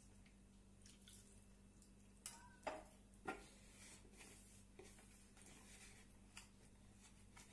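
Faint squishing and tapping of fingers kneading a cornflour-and-water batter in a glass bowl, with three sharper squelches close together a little before the middle.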